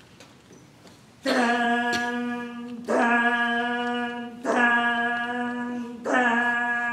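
A single voice chanting four long, held notes on the same steady pitch, one after another, starting about a second in: the opening of a joruri recitation.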